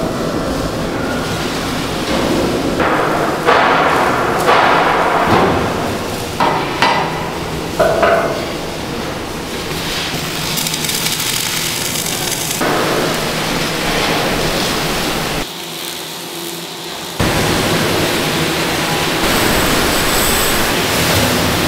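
Steel-fabrication workshop din with several loud metallic clanks and knocks in the first half, from a heavy steel plate hung on a lifting magnet being lowered and set onto an excavator boom. The din drops away for about a second and a half near the three-quarter mark, then returns.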